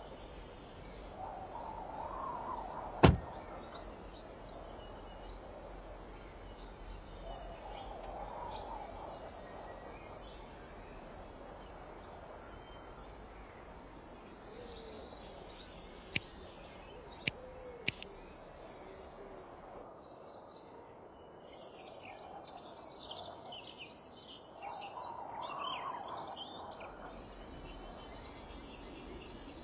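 Outdoor ambience of birds chirping over a steady high insect hum, with a car door slamming shut about three seconds in, the loudest sound. Three sharp clicks follow around the middle.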